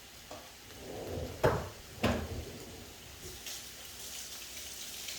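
Two knocks about half a second apart as kitchen things are handled, then faint sizzling of meat frying on a cast iron grill pan.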